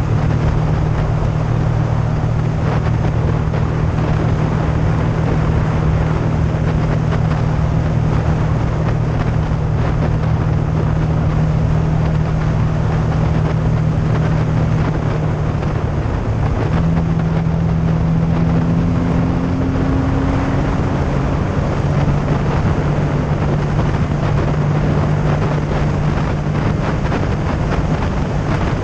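Yamaha FZ-09's three-cylinder engine running steadily at cruising speed on the open road, with wind rushing over the microphone. A little past halfway the engine note changes, rising briefly and then settling a little lower.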